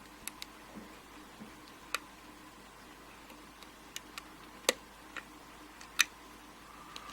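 Irregular sharp metallic clicks, about ten of them with two louder ones in the second half, from a lock pick working the pin tumblers of an Abus 72/40 euro cylinder during single-pin picking, while the picker searches for the pin that is holding the lock up. A faint steady hum runs underneath.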